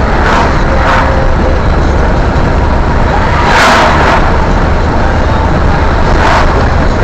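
Car driving at road speed, heard from inside the cabin: steady road and engine noise, with oncoming vehicles passing the other way four times, the loudest a little after halfway.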